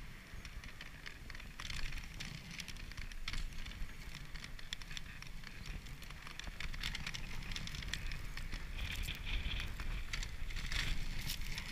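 Dog sled runners hissing and crackling over packed snow as the husky team pulls, with scattered clicks and rattles from the moving sled over a steady low rumble.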